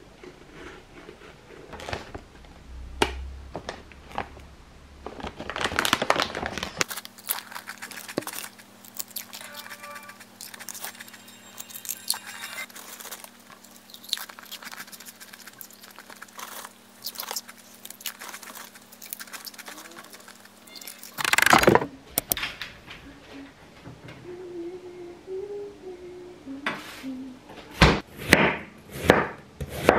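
Foil potato-chip bag crinkling and rustling as chips are handled, then near the end a chef's knife slicing an onion on a wooden cutting board, one stroke about every second.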